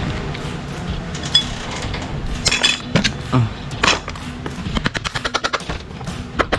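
Hand tools working on motorcycle engine parts: scattered metal clinks and knocks, with a quick run of clicks about five seconds in and again near the end.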